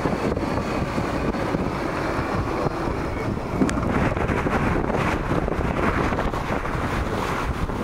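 Wind buffeting the microphone over the steady rush of water past the hull of a large classic sailing yacht heeled over and sailing fast.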